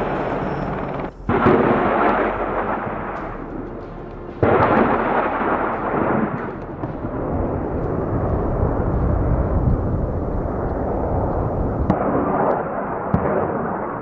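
Attack helicopter firing rockets. Two sudden loud blasts, about a second and four and a half seconds in, each tail off in a long rushing roar. A steady rumble follows, with a few sharp cracks near the end.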